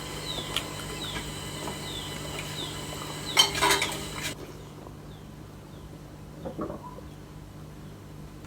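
Chickens calling, a run of short, high, falling peeps about twice a second, with a louder burst of calling or clatter around three and a half seconds in. After about four seconds it goes quieter, with only a few faint peeps and a soft knock.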